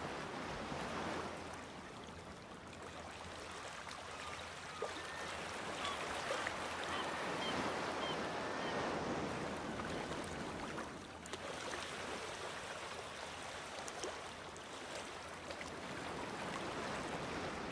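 Sea waves washing against rocks, the surf swelling and ebbing, loudest about a third of the way in.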